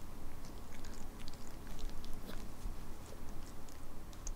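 Chihuahua licking and nibbling close up: an irregular run of small wet clicks and smacks from its mouth.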